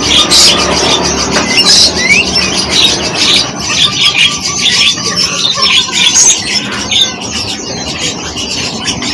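Small and medium birds chirping and calling continuously: a dense run of rapid, overlapping high chirps with a few short sliding whistles.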